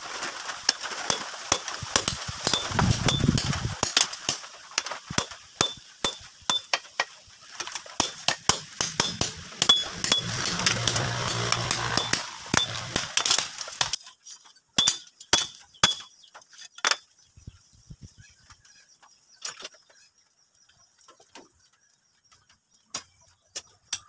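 Hammer blows on a red-hot leaf-spring steel cleaver blade lying on a steel block anvil: a quick run of sharp, ringing metal-on-metal strikes that thins out after about 14 s and dies away a few seconds later.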